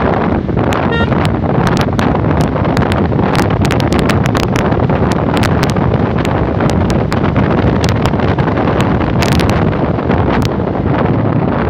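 Wind buffeting the microphone of a phone held on a moving scooter: a loud, steady rush broken by frequent crackling pops.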